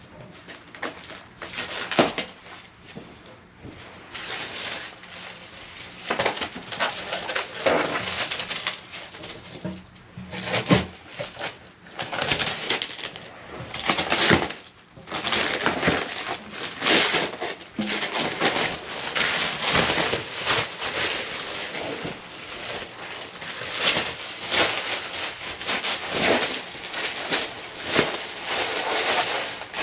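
Clear plastic shrink wrap being peeled off a glass aquarium and bunched up by hand: continuous crinkling and crackling, with irregular louder crackles throughout.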